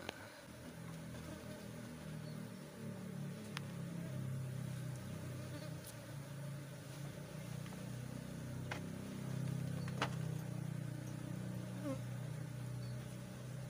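Many Asian honey bees (Apis cerana) buzzing around a wooden box hive that has been opened for honey harvesting: a steady low hum of many wingbeats that swells a little now and then, with a few faint sharp taps.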